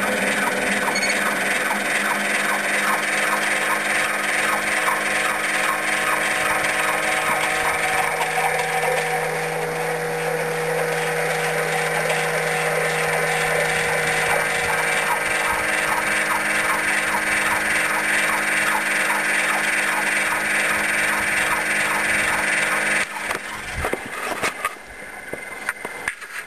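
An engine running steadily, a loud drone of several steady tones with a fast regular pulse. About 23 seconds in it drops away into rougher, uneven noise.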